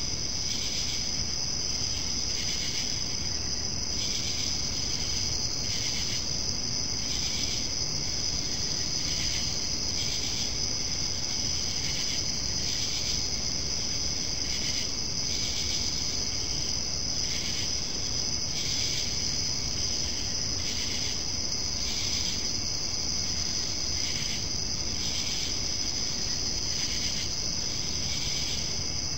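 Night insects, crickets, trilling steadily in a high pitch, with a second chirp pulsing about once a second, over steady low background noise.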